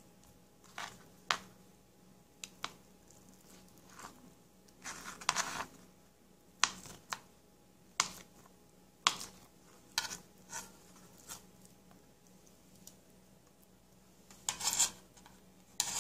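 Kitchen knife cutting a block of SPAM on a plastic cutting board: sharp knocks of the blade hitting the board, about a dozen at uneven intervals, with two longer scraping sounds, one about five seconds in and one near the end.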